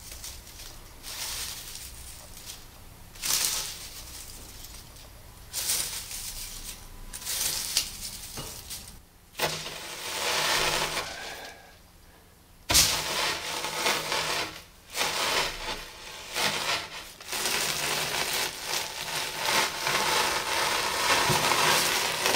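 Dry, charred matchsticks rustling and crunching as handfuls are dropped onto a heap, in uneven swells. About thirteen seconds in, a sharp crunch starts a busier stretch, as a red fire extinguisher is pressed down into the heap.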